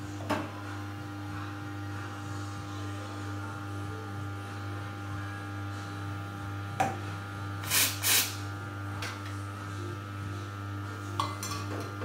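SV Italia two-group espresso machine humming steadily as its pump pushes two espresso shots through. A few clinks and knocks from milk jugs being handled, the loudest two in quick succession a little after halfway.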